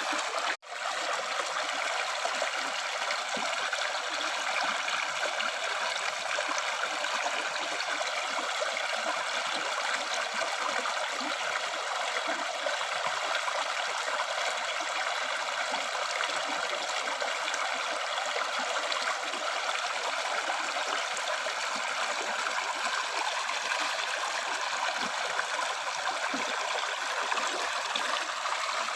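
River stream water flowing and trickling steadily, a continuous light rushing with little low rumble. It drops out for a split second about half a second in.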